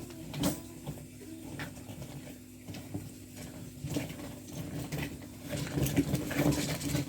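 Small fidget toys and stress balls being handled and shuffled through: scattered light clicks and rattles, over a steady low hum.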